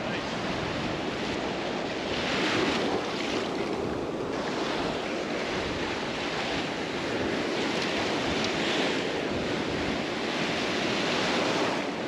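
Gulf of Mexico surf breaking and washing up a sandy beach, the rush of water swelling and fading every few seconds.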